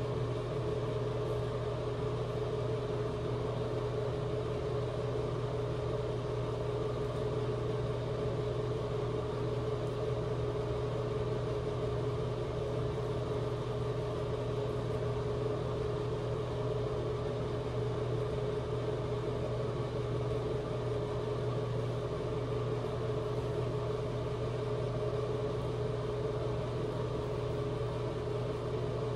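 Steady mechanical hum: a low drone with a higher steady tone above it, unchanging in level.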